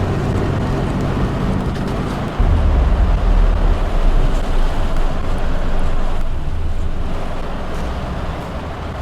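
Road vehicle driving, a steady low rumble of engine and road noise that turns suddenly heavier and rougher about two and a half seconds in.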